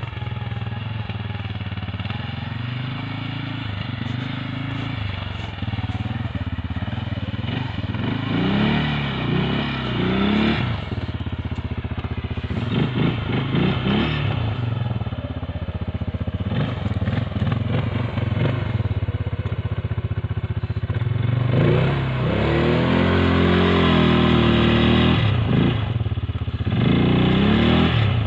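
CFMoto CForce 550 ATV's single-cylinder engine revving over and over as the quad pushes through deep snow, pitch rising and falling with each burst of throttle, with one longer rev about three-quarters of the way through.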